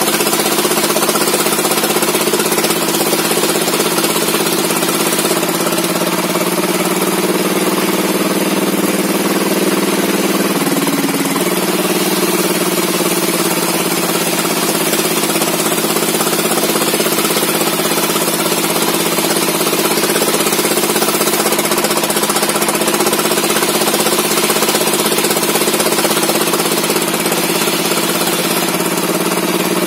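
Petrol engine of a log-sawing machine running steadily at high speed, its pitch dipping briefly about ten seconds in.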